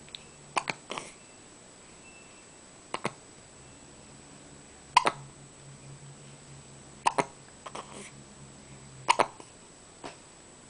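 Hiccups: short, sharp catches that repeat roughly every two seconds, a few coming as quick double hics.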